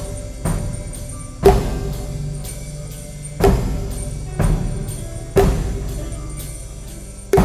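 Slow, sparse experimental music: a struck percussion hit about once a second, each one ringing out, over a steady low bass tone.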